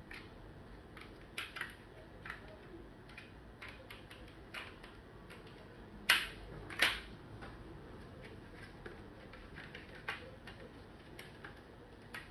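Scattered light clicks and taps of a small screwdriver on a Huawei B622 router's circuit board and plastic housing during disassembly, with two sharper clicks a little past the middle, under a second apart.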